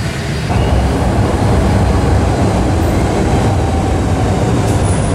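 Docklands Light Railway train pulling into the station, a steady loud rumble that grows louder about half a second in.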